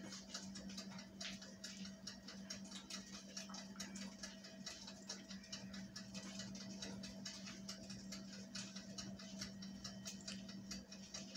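Quiet kitchen background: a steady low hum with faint, irregular light ticking and clicking throughout.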